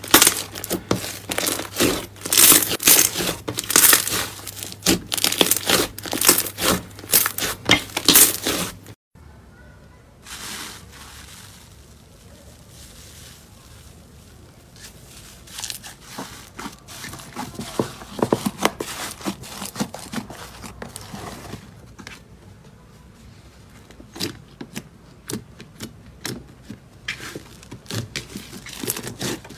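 Slime being squished and kneaded by hand, with dense crackling and popping. About nine seconds in it cuts to a quieter stretch of scattered small pops and squelches, which grow busier again near the end.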